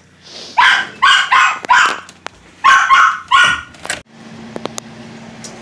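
A dog barking, about six sharp barks in two quick runs of three. The barking cuts off abruptly about four seconds in.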